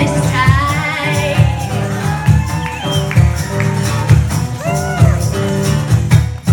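Live band playing an instrumental stretch of a song: electric and acoustic guitars and electric bass over a steady beat, with a lead line of sliding, bending notes.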